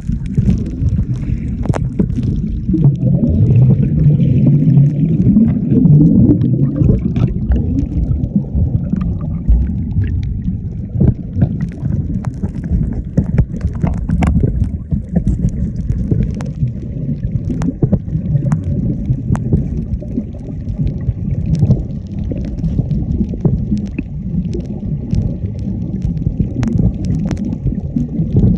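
Muffled underwater noise: a dense low rumble and gurgle with many scattered sharp clicks.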